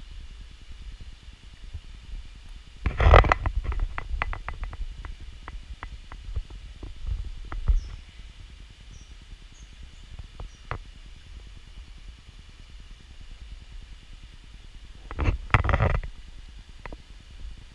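Handling and movement noise from a GoPro action camera carried while walking: a low rumble on the microphone, with a loud rub about three seconds in followed by a run of irregular small clicks and knocks, and another loud rub near the end.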